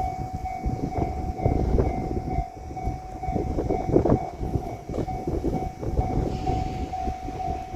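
A Japanese level crossing's warning bell rings steadily, about two strokes a second, over the low rumble and irregular clatter of a JR Shikoku 8000 series electric limited express train's wheels running over the rails. The clatter is loudest about four seconds in.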